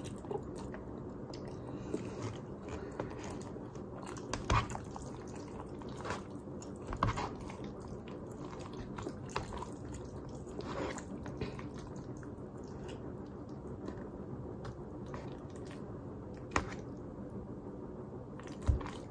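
A person chewing a mouthful of spaghetti carbonara, with wet mouth sounds and a few short sharp clicks and smacks scattered through, over a steady low hum.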